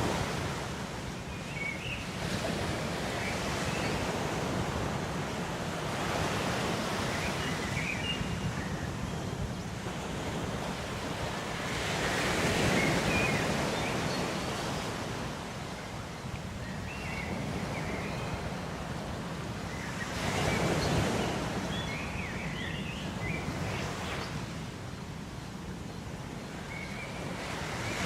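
Ocean waves washing in on a shore, a steady rush that swells and breaks about every eight seconds.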